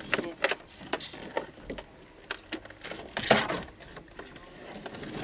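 Irregular knocks, clicks and scuffs, with a louder scraping rustle about three seconds in.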